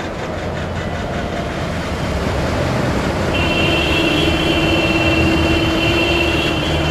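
Traffic on a rain-flooded street: a steady wash of vehicle and water noise that grows slightly louder. A vehicle horn holds one long blast from about halfway through.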